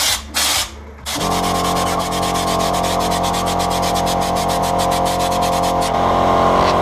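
Air-powered bedliner spray gun hissing in short bursts. About a second in, a steady mechanical hum with fast pulsing sets in.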